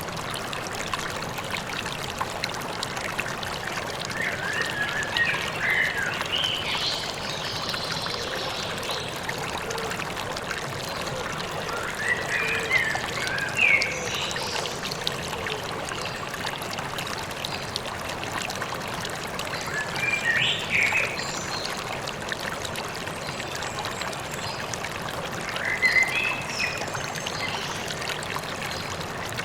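A river or stream trickling and gurgling steadily, with songbirds chirping in short phrases every several seconds.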